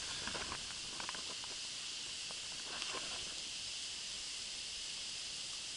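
A steady, even hiss, with a few faint clicks in the first second.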